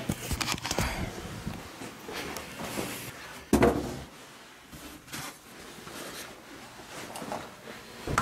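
Rummaging and handling noises: scattered knocks and rustles as objects and a box are moved about, with one loud thump about three and a half seconds in.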